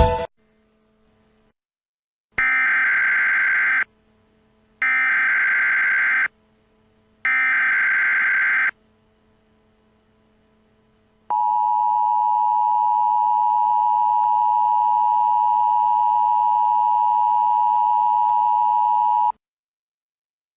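Emergency Alert System header: three short stretches of buzzing digital data, each about a second and a half long, then after a pause the steady two-tone EAS attention signal, held for about eight seconds and then cut off. This sequence marks the start of an emergency broadcast alert.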